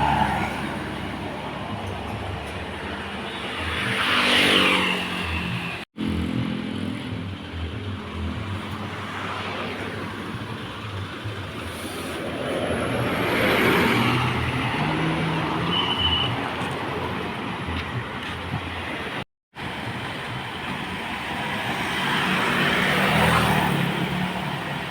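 Large vehicles, tour buses, driving past one after another over steady engine hum. Three pass-bys swell and fade about nine seconds apart, and the first falls in pitch as it goes by. The sound cuts out abruptly twice.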